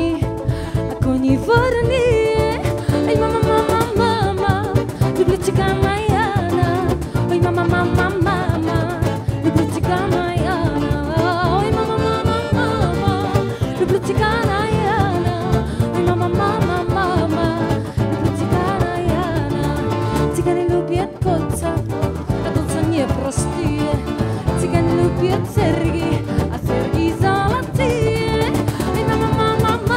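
Live gypsy-klezmer band playing a passage with a wavering lead melody over guitar and a steady cajón beat.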